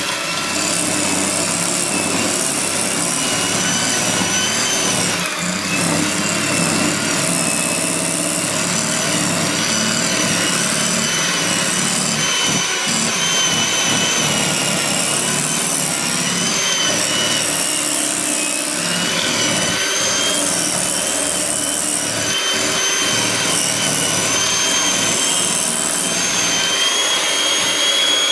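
Electric mixer running continuously, creaming butter, cream cheese and powdered sugar together for cream cheese icing. Its motor whine wavers up and down in pitch as the beaters work through the mix.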